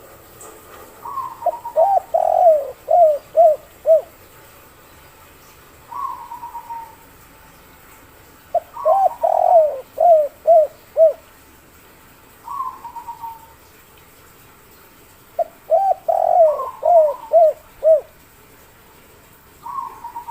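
Spotted dove (derkuku) singing its 'kuk 3' coo three times, about seven seconds apart. Each phrase is a few short notes, one long coo, then three short 'kuk' notes. A fainter, higher falling call repeats between the phrases.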